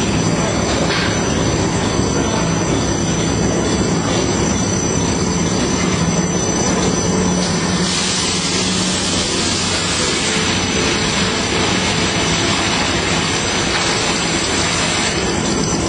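Toilet-roll and kitchen-towel converting line running: a loud, steady mechanical clatter and rumble of rollers and drives, with a steady hum and a thin high whine. A harsher hiss comes up about halfway through and fades near the end.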